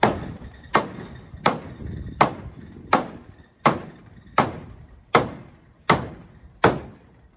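Hammer blows, ten at an even pace of about three every two seconds, each sharp strike ringing briefly before the next.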